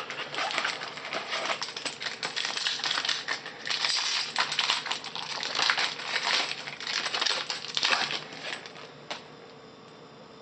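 Foil trading-card pack wrapper crinkling and tearing as a Topps Chrome pack is opened: a dense, crackly rustle that stops about nine seconds in.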